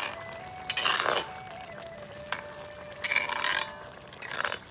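Spatula stirring a wet chicken and banana-stem curry in an iron kadai, in three short spells about one, three and four and a half seconds in.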